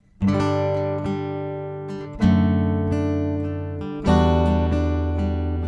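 Steel-string acoustic guitar playing an unaccompanied intro: three chords struck about two seconds apart, each left to ring and fade.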